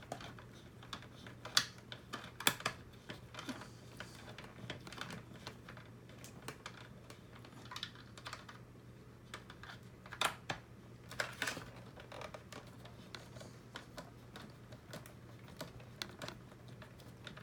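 Irregular small clicks and taps of hard plastic parts and small screws being handled and driven into a DJI RoboMaster S1 robot's body panels, with a few louder clusters of clicks, over a steady low hum.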